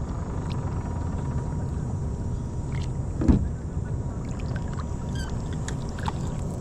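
Steady low rumble from a kayak out on the river, with a few light clicks and one dull knock a little over three seconds in.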